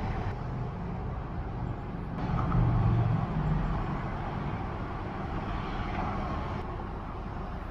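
Steady rumble of road traffic, with one vehicle passing louder about two and a half seconds in.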